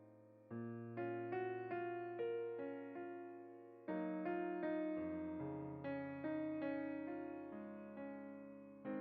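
Soft background piano music: slow single notes and chords, each struck and left to fade, with a fuller chord coming in about half a second in and again about four seconds in.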